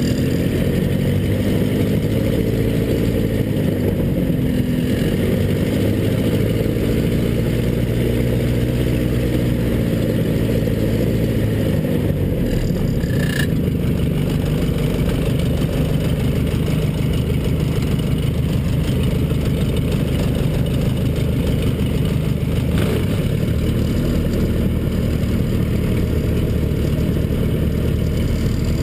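Zlin Z-126's Walter Minor four-cylinder piston engine and propeller running at low taxi power, heard from inside the cockpit. Its pitch wavers gently up and down through the first dozen seconds, then holds steady.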